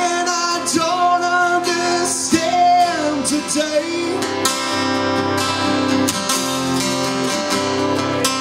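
Acoustic guitar strummed live, with a man singing long held notes over the first few seconds; after that the guitar carries on alone.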